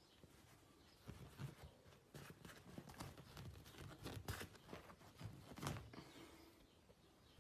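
A cat playing: faint, irregular scratches, taps and rustles starting about a second in and dying away near six seconds.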